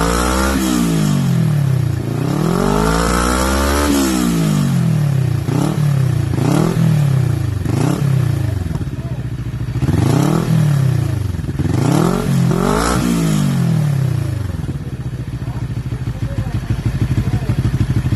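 CF Moto NK400's parallel-twin engine revved again and again through a Yoshimura Alpha carbon exhaust, its pitch rising and falling in a string of blips, some long and some quick. It then settles back to a steady idle for the last few seconds.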